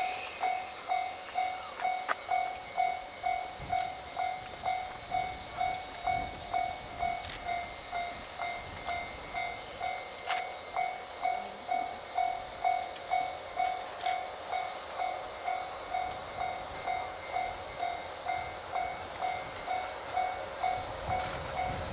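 Railway level-crossing warning bell ringing steadily at about two dings a second, over a faint steady high hiss.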